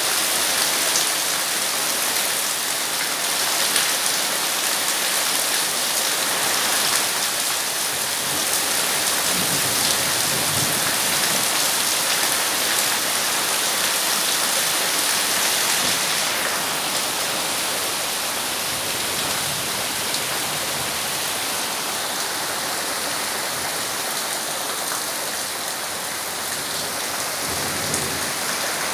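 Heavy rain pouring steadily onto grass, puddles and a flooded yard, a dense even hiss of drops.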